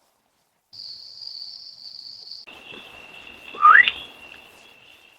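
Steady, high-pitched insect trilling, like crickets at night, which shifts in pitch at a cut about two and a half seconds in. About a second after the cut comes one short, loud, rising whistle-like chirp.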